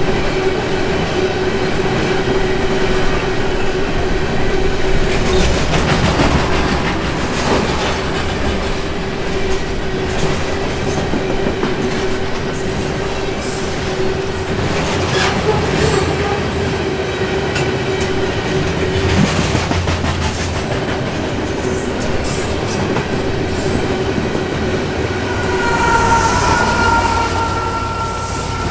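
A loaded coil-steel freight train rolling past at speed: a steady rumble of wheels on rail with scattered clacks, and a constant high tone through most of it. Near the end two higher squealing tones appear as a rear locomotive comes up.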